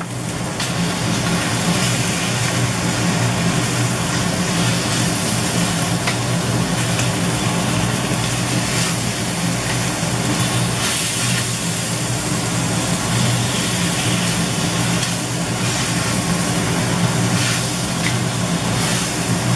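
Beef, kimchi and scallions sizzling as they are stir-fried in a steel wok over a gas flame, with a wooden spatula scraping and tossing them now and then. A steady low hum runs underneath.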